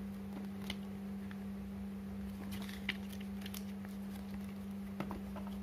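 Pages of a paper instruction booklet and leaflets being flipped and handled, a few soft rustles and taps, over a steady low hum.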